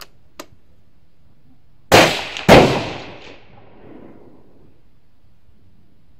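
Two loud rifle shots about half a second apart, each ringing out and dying away over about a second; one of them is the .243 Tikka T3 CTR bolt-action rifle fired from prone.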